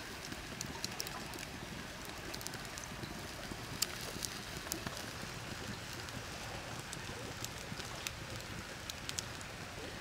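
Open wood fire crackling under a hot cooking stone: scattered sharp pops and snaps over a steady hiss, one pop louder about four seconds in.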